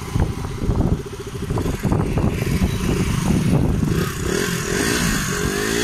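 KTM Duke motorcycle engine running as the bike rolls past, with some clatter. Near the end the engine is revved up and back down, in a wheelie attempt that does not lift the front wheel.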